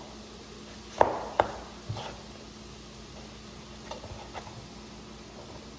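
Kitchen knife slicing through a tomato and knocking on the cutting board: a few sharp knocks about a second in, then lighter taps later, over a faint steady hum.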